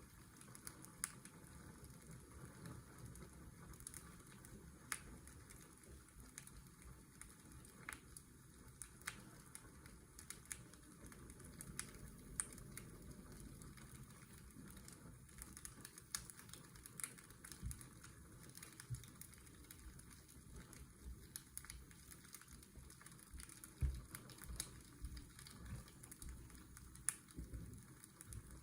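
Fireplace crackling: irregular small pops and snaps over faint, steady washing-machine white noise.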